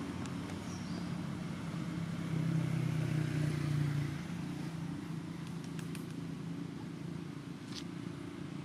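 Low, steady engine drone from a passing motor vehicle, growing louder for a couple of seconds around the middle and then easing back.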